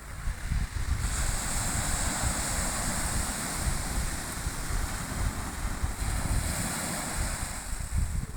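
Black Sea surf washing on the shore, a steady wash that swells about a second in, with wind buffeting the microphone.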